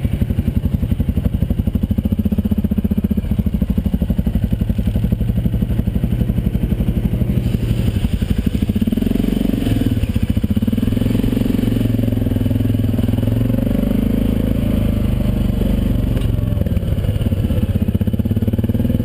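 Quad bike (ATV) engine running at steady low revs while under way, with a fast, even pulsing of its firing.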